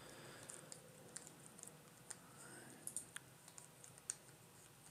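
A few faint, irregularly spaced clicks of a computer mouse over quiet room tone.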